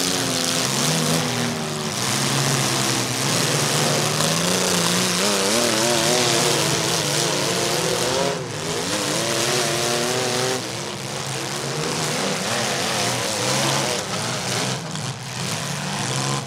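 Several demolition derby compact cars' engines revving hard together, their pitches repeatedly rising and falling as they push and ram, over a dense roar of exhaust noise.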